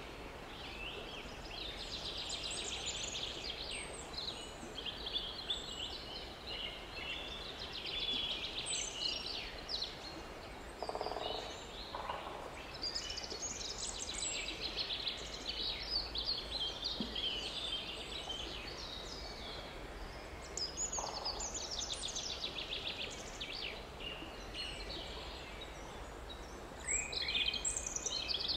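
Several songbirds singing in the surrounding forest: overlapping chirps and rapid trills throughout, growing busier and louder near the end, over a faint steady outdoor background. Two brief lower sounds come about eleven and twenty-one seconds in.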